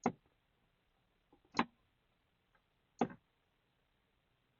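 Three short, sharp clicks about a second and a half apart: the push-to-start button of a Cadillac XT4 being pressed again and again, with no engine starting because the key fob is dead.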